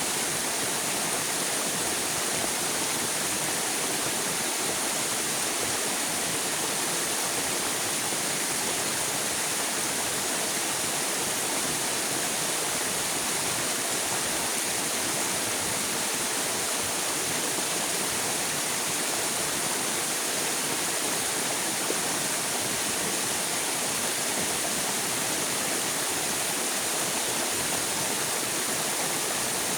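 River water flowing: a steady, even rushing hiss with no breaks.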